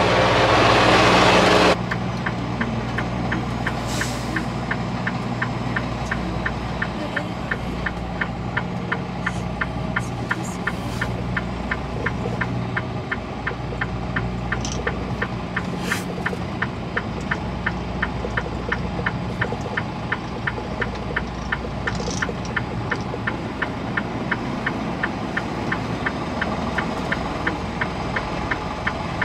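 Semi truck's diesel engine idling, heard from inside the cab as a steady low hum with a regular ticking about two to three times a second. A louder rush of noise at the start cuts off sharply just under two seconds in.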